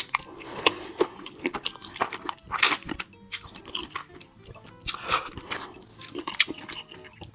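Close-miked chewing of creamy, cheesy pasta: wet, irregular mouth smacks and clicks, with a few longer wet sounds about two and a half and five seconds in.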